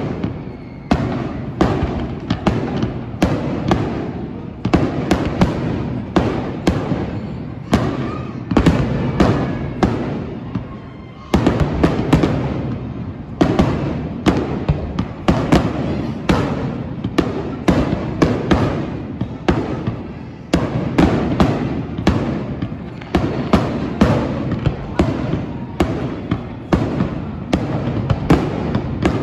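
Fireworks display: a dense, continuous barrage of sharp bangs and crackles, several a second, easing briefly about eleven seconds in before a fresh burst.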